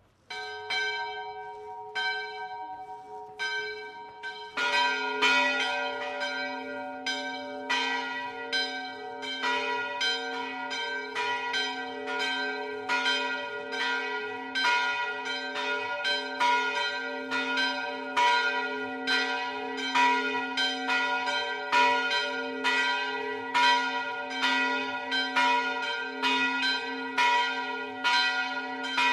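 Church tower bells ringing. A few separate strokes come first; then, about four and a half seconds in, many bells start sounding in quick, even succession over a steady low hum.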